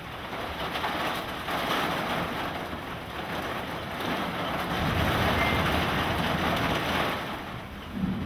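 Thunderstorm wind and rain making a steady rushing noise that swells about four seconds in and eases briefly near the end.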